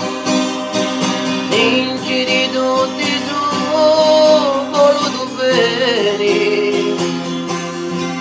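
Acoustic guitar strummed in a steady rhythm, with a man's voice singing a long, drawn-out melodic line over it through the middle.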